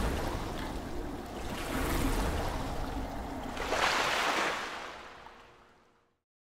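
Splashing, rushing water sound effect for a logo animation, swelling in waves, loudest about four seconds in, then fading out to nothing about six seconds in.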